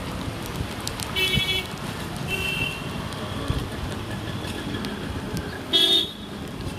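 Street traffic with a steady rumble of engines and road noise. Short vehicle-horn toots sound about a second in, then a fainter one just after. The loudest toot comes near the end.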